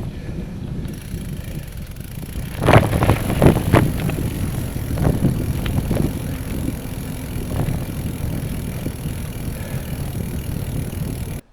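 Bicycle being ridden: steady wind rush on the microphone and tyre noise, with a few sharp knocks and rattles from bumps on the trail about three to eight seconds in, then the sound cuts off abruptly at the end.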